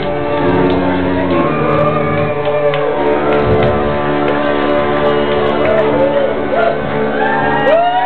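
Live street brass band playing, the sousaphone and horns holding tones over drums and cymbals, with shouts and whoops from the crowd over the music, the loudest near the end.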